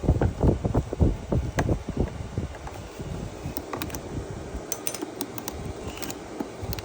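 Handling noise from work on a small generator: rapid low thumps and knocks for the first couple of seconds, then scattered light clicks of tools and small parts.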